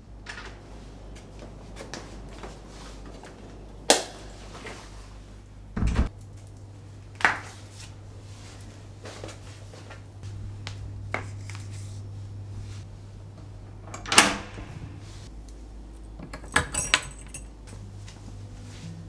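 Household handling sounds in a quiet room: a string of sharp knocks and clicks, the loudest about four seconds in and again around fourteen seconds, over a low steady hum. There is a brief metallic jingle near the end.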